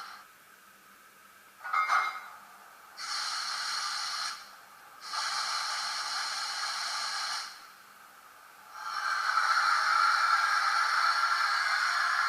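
Sound module of an MTB-Model ST43 diesel locomotive model playing hissing sound, which starts and stops abruptly in three stretches: about a second long, then about two and a half seconds, then from about nine seconds on. A short clinking burst comes about two seconds in.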